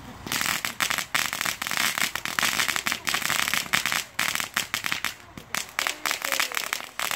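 Ground fountain firework spraying sparks with dense, rapid crackling pops, starting about a third of a second in and carrying on without a break.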